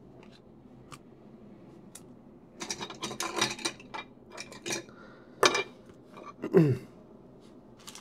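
Plastic clicking and rattling from handling a sleeved trading card and setting it upright in a card stand on a wooden desk, with two sharper knocks in the second half.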